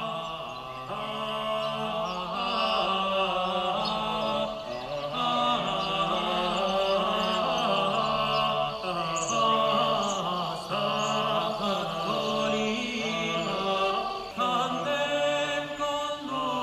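Soundtrack music: slow chant-like singing, with long held notes that move step by step in pitch.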